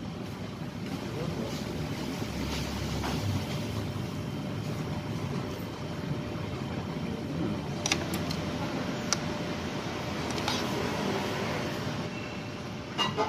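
Steady background street traffic noise, with a few light clicks of a metal fork and spoon against a bowl during the second half.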